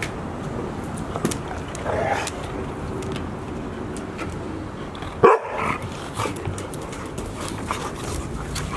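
Golden retrievers play-fighting and giving short dog vocal sounds, with one sharp bark about five seconds in as the loudest sound.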